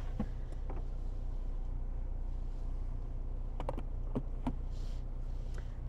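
Steady low hum of a car idling, heard from inside the cabin, with a few light clicks about three and a half to four and a half seconds in.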